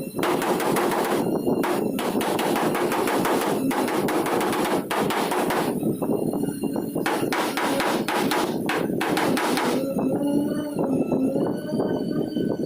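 Rapid, repeated hammering on the truck's sheet-metal body panels, many sharp metallic strikes close together, as in panel beating. In the last few seconds the strikes thin out and a steady pitched sound with several partials takes over.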